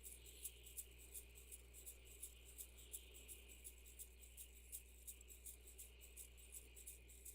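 Very faint music: a shaker-like rhythm of high ticks about three a second over a low steady hum.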